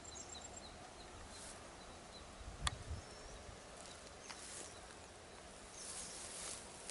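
Faint field ambience: a train of short high chirps that thins out over the first two seconds or so, a single sharp click about two and a half seconds in, and footsteps rustling on the soil toward the end.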